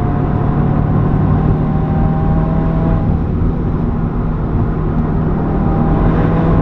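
Exhaust of a 2015 Subaru WRX with a Nameless muffler delete, its turbocharged flat-four droning steadily under way, the pitch creeping slowly upward.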